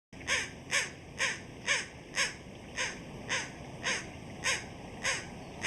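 American crow cawing in an evenly paced series of short, harsh caws, about two a second, each rising and falling slightly in pitch.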